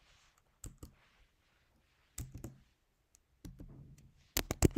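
Keystrokes on a computer keyboard: a few scattered key presses, then a quick run of several sharper ones near the end.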